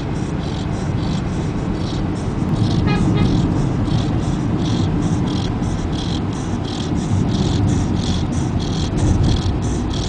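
Road noise inside a moving car, a steady low rumble, with a fast, even, high-pitched chirping about three times a second over it.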